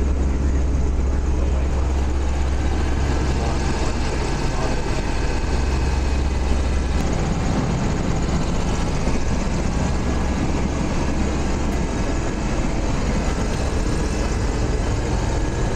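The Goodyear Blimp's engines and propellers running with a steady drone, heard from inside the gondola cabin. The deepest part of the drone lessens about halfway through.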